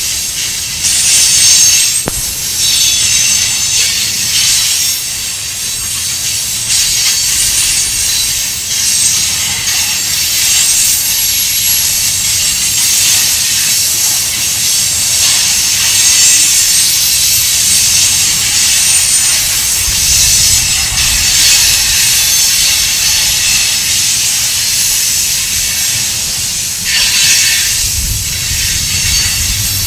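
Tank cars of a freight train rolling past: steel wheels on the rails make a steady high hiss with thin high tones, and a couple of heavier low rumbles come through near the middle and near the end.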